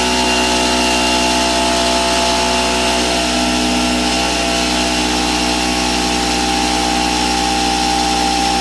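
Pancake air compressor's motor and pump running steadily: a loud, even machine drone with a constant pitch.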